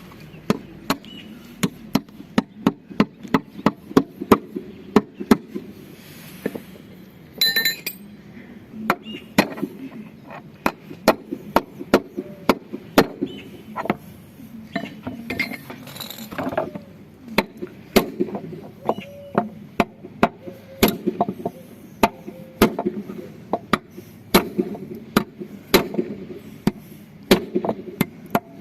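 Hammer blows on metal, about one to two strikes a second with a short break, driving a bearing in the hub of a washing machine drum during a bearing change.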